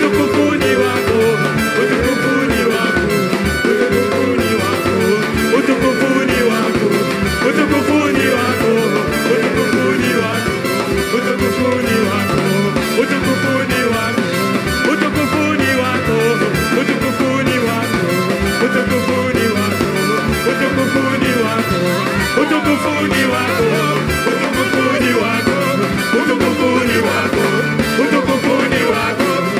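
Upbeat band music with a steady dance beat.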